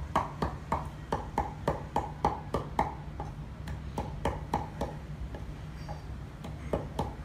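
A knife chopping rapidly on a wooden cutting board, mincing red chillies with sharp knocks about three times a second. The strokes go lighter for a few seconds in the middle, then pick up again near the end.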